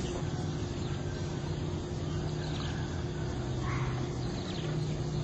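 Outdoor background noise: a steady low hum and hiss, with a few faint high chirps.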